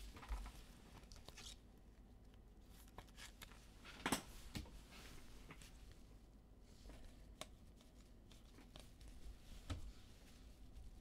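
Foil trading card pack wrappers being torn open and crinkled, with cards handled: faint, scattered rustles and clicks, the sharpest about four seconds in.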